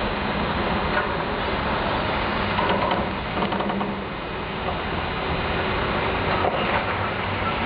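Demolition machinery at work: a steady mechanical rumble with scattered clicks and clanks.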